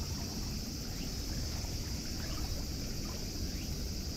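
Small waves lapping at the lake shore with wind rumbling on the microphone, over a steady high insect drone.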